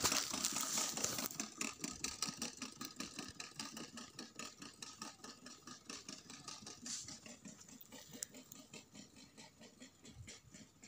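Hand-pushed wheeled corn planter clicking and rattling in a quick, even rhythm as it rolls over tilled soil, several clicks a second, growing fainter as it moves away.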